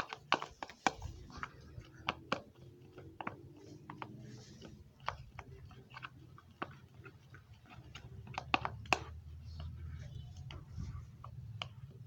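A stirrer clicking and tapping irregularly against a container while tissue and dish soap are stirred into slime, over a faint low hum.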